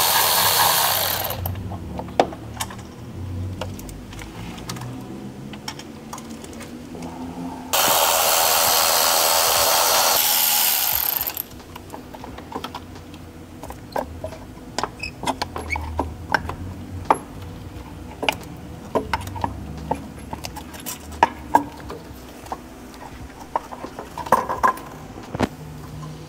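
Cordless ratchet running, backing out the bolts of the turbo inlet bracket: one short run at the very start and a longer run of about three and a half seconds starting about eight seconds in. In between and afterwards, scattered clicks and knocks of metal parts and tools being handled.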